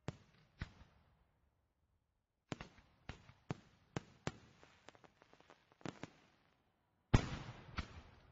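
Fireworks exploding in irregular sharp bangs, each with a short crackling tail: two bangs at the start, a volley of several bangs about two and a half seconds in, and the loudest blast a little before the end, followed by crackling.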